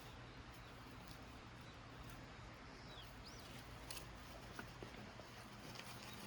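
Faint outdoor ambience with a single short, high bird chirp about three seconds in and a few light clicks and ticks.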